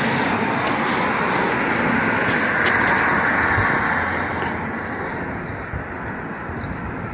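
A passing vehicle: a rushing road or traffic noise that swells to a peak about three seconds in and then fades away.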